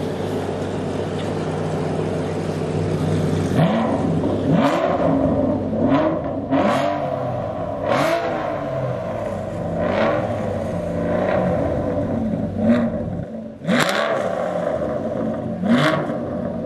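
Aston Martin Vantage sports-car engine idling, then revved in about ten quick blips from a few seconds in, each rising and falling in pitch with a sharp crack from the exhaust.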